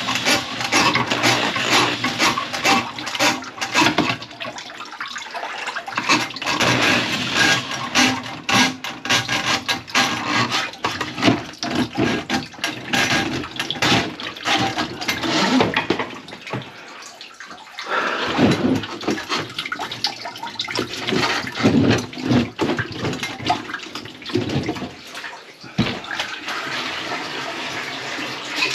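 Water splashing and pouring under a kitchen sink, mixed with irregular knocks and scrapes of the metal drain pipe being handled. Near the end it gives way to a steadier rush of water, like a faucet running into the sink.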